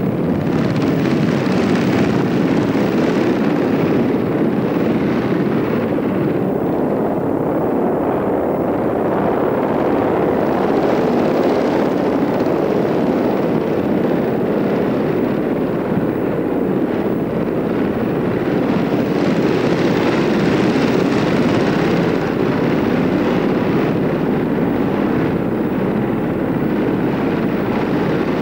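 Propeller aircraft engine running steadily, a continuous loud drone.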